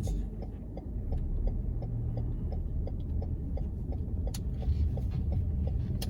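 Low, steady rumble like a car in motion, with faint, even ticking about four times a second.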